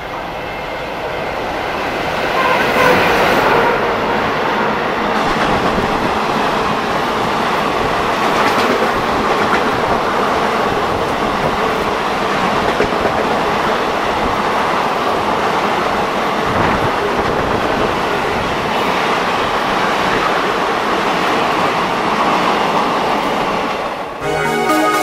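Express train passing at speed behind a WDG-3A diesel locomotive coasting with its throttle in notch off. The rush of the approaching train builds to its loudest about three seconds in, then holds as a long steady rush of the coaches' wheels running over the rails. Electronic music cuts in near the end.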